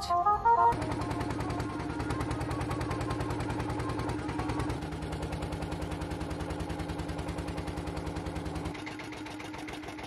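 A fishing boat's motor running with a steady, rapid chugging. It drops to a quieter running sound near the end.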